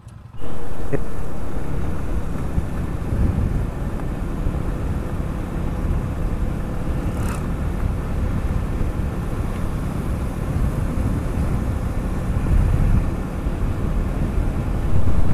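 A road vehicle driving along: its engine runs under a dense, steady rumble of road and wind noise, which starts abruptly just after the beginning. A brief higher sound comes about halfway through.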